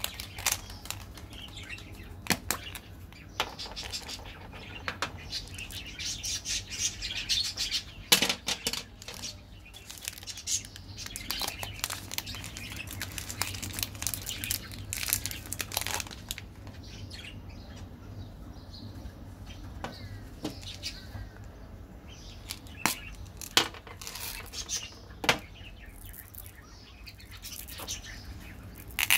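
Plastic and foil candy wrappers crinkling and tearing as they are opened by hand, with sharp clicks and taps from plastic candy containers.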